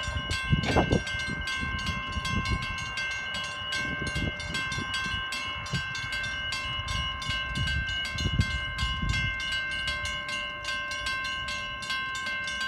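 Level-crossing warning bell ringing with fast, even strokes while the booms are down and the lights are flashing: the crossing is active for an approaching train. Uneven low rumbling runs underneath.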